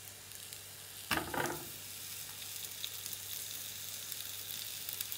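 Swede slices sizzling in olive oil in a griddle pan. About a second in, a halved sweet potato goes into the hot pan with a short thump and a louder burst of sizzling, and the sizzling carries on steadily after it.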